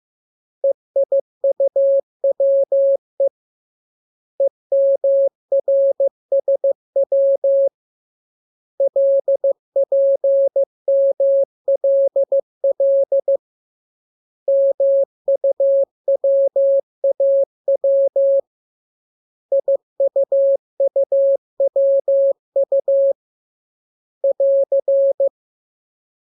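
Morse code (CW) practice tone: a single steady beep keyed on and off in dots and dashes, sending letters in six groups separated by short pauses.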